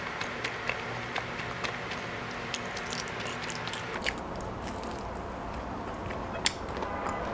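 A person chewing and biting food with the mouth close to the microphone: many small, sharp wet mouth clicks, including a bite into a piece of pizza crust. One louder click comes about six and a half seconds in.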